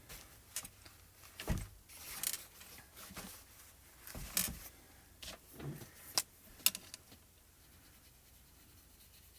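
Scattered small clicks, taps and rustles of a marker and paper being handled on a desk, dying away after about seven seconds.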